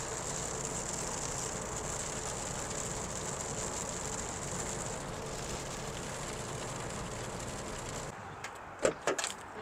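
Steady rush of tyre and rain noise from inside a car driving on a wet road in rain. Near the end the noise drops abruptly and a few sharp knocks and clicks follow.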